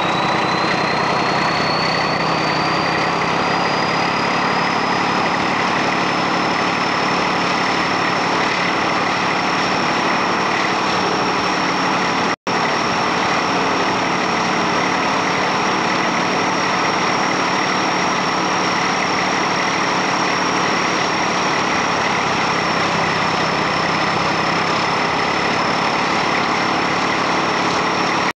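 Class 14 diesel-hydraulic locomotive's Paxman Ventura engine working hard as the locomotive gets under way, heard from the cab window. A high whine climbs in pitch over the first several seconds and then holds steady. The sound cuts out for an instant about twelve seconds in.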